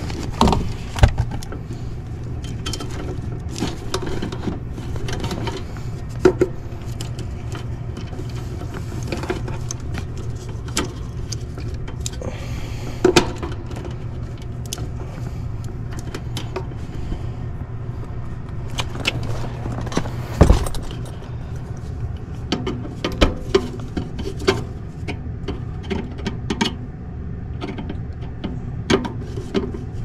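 Scattered clicks, taps and metallic clinks of hand tools, screws and wiring being worked inside a sheet-metal air handler's control panel, over a steady low hum. The sharpest knocks come about a second in, about 13 s in and about 20 s in, with a flurry near the end.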